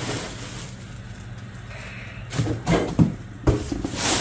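Ceramic cookie jar pieces being pulled from a cardboard box packed with bubble wrap and set down. About halfway in comes a run of five or six knocks and thumps, then a short rustle near the end.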